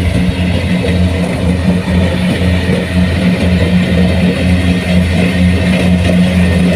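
Kubota rice combine harvester's diesel engine running steadily under load, a deep, even hum with a slight pulse.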